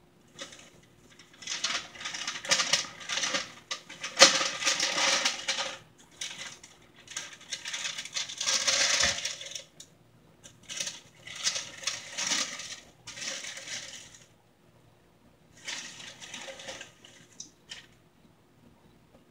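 Tissue paper crinkling and rustling as it is unfolded by hand inside a shoebox, in several spells of handling with short pauses between them.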